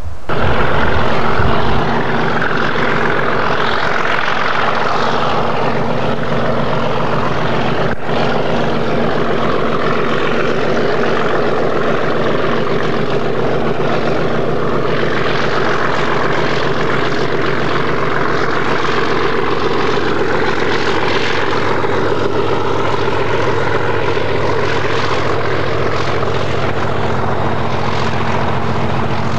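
Class 37 diesel-electric locomotive's English Electric V12 engine running under power as it hauls a train of hopper wagons past: a loud, steady engine drone, with a brief click about eight seconds in.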